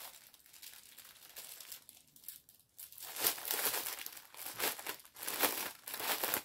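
Plastic wrapping of a cross-stitch kit crinkling as it is handled to find the opening: faint at first, then a run of sharper irregular crinkles from about halfway through.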